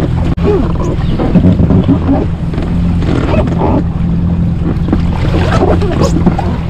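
Yamaha jet ski engine idling with a steady low hum, while water sloshes and splashes against the hull as a thrashing mackerel is hauled alongside and lifted aboard.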